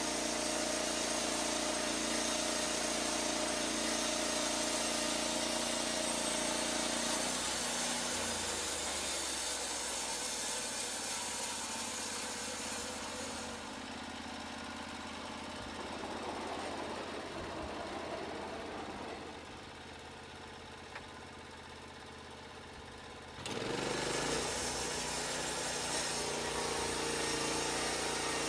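Portable band sawmill running: its engine hums steadily, turns quieter and duller for several seconds past the middle, then comes back abruptly near the end.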